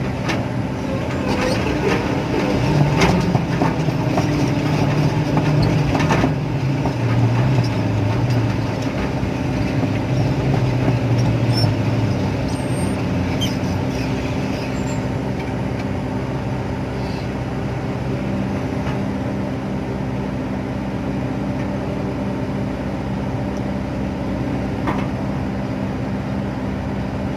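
Hydraulic excavator's diesel engine running steadily, its lower note wavering as it takes load in the first dozen seconds. A few sharp knocks can be heard, the clearest about six seconds in and one near the end.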